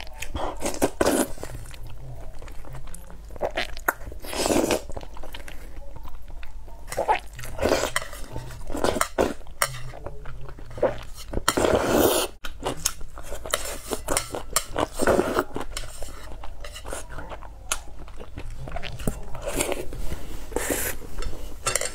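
Close-up eating sounds of a person slurping saucy noodles: repeated loud slurps a few seconds apart, with chewing and chopsticks clinking and scraping on a metal plate.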